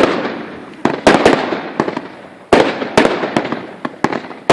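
Fireworks going off: about ten sharp bangs in irregular succession, each trailing off over a second or so. A strong bang comes after a short lull about two and a half seconds in.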